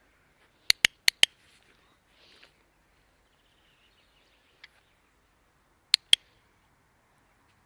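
Dog-training clicker clicked sharply: four quick clicks about a second in, then two more close together near six seconds. These are click signals used to get the dog's attention.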